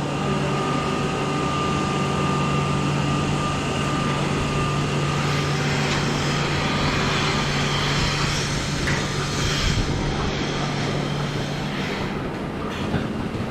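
Milking-parlour machinery running during milking: a steady mechanical hum with a higher whine over a noisy mechanical background. The hum fades about a second before the end.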